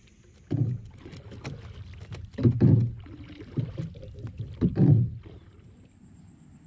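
Knocks and low thuds on a small boat's hull with clicks from handling gear, swelling in three louder surges about two seconds apart.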